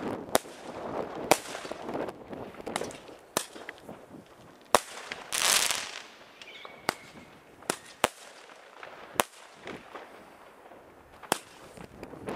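Firecrackers and fireworks going off: a string of sharp bangs at irregular intervals, some loud and close, others faint and distant. About five seconds in, a louder hissing rush is followed by a faint high whistle.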